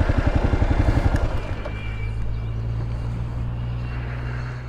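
Kawasaki KLR 650's single-cylinder engine idling in even pulses for about the first second, then giving way to a steady low hum.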